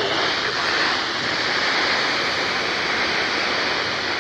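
Steady static hiss from a weather radio receiver: an even wash of noise with no tones or rhythm.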